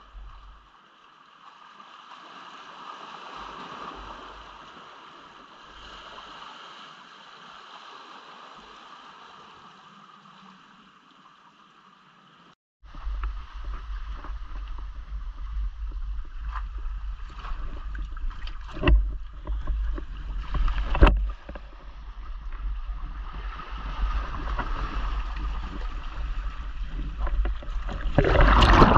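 Sea water washing and splashing around a speargun-mounted action camera as a spearfisher enters the surf from the rocks. It is faint and steady at first, then jumps to a louder rushing wash with a low rumble about 13 seconds in, with a few sharp knocks, and splashing grows loud near the end.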